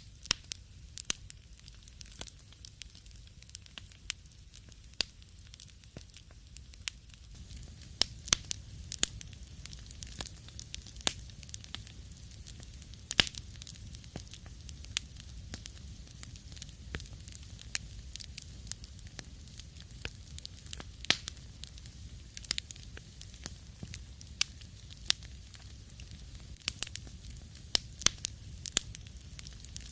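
Wood fire crackling in a fireplace: irregular sharp pops and snaps over a low steady rumble, the pops coming more often from about seven seconds in.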